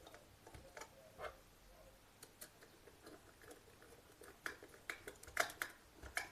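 Faint, scattered small clicks and ticks of hands and a tool working a wire into a terminal on a plastic power-plug switch board, coming more often near the end.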